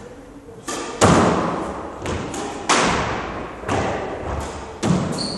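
Squash ball being struck back and forth in a rally: a string of sharp knocks from racket and walls, each ringing briefly in the enclosed court. A brief high squeak comes near the end.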